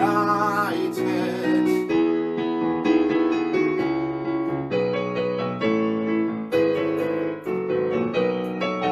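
A sung word held with vibrato at the start gives way to a piano accompaniment playing sustained chords between the song's lines.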